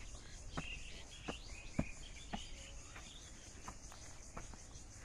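Faint outdoor rural ambience: insects buzzing steadily in a high register, with a string of short sharp clicks and chirps, one or two a second.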